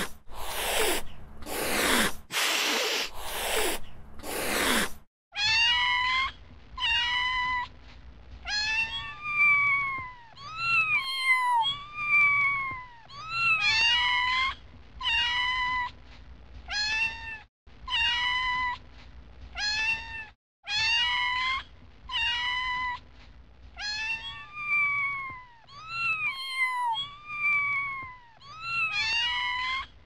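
Domestic cat hissing several times in sharp breaths, then, after a cut about five seconds in, a cat's distress call: a long series of short meowing cries, about one a second, each rising and then dropping in pitch.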